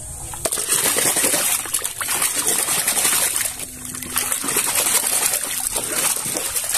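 Water splashing and sloshing as a muddy plastic toy tank is plunged and scrubbed by hand in churning water, with a dense run of small splashes that dips briefly a few times.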